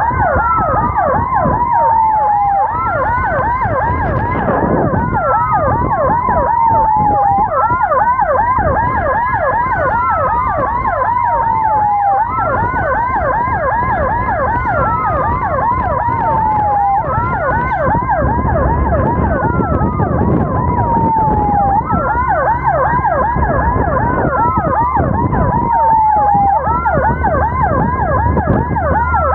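Emergency-vehicle sirens sounding together: a slow wail rises, holds and falls about every five seconds, under a rapid yelp that repeats several times a second, over the low rumble of road traffic.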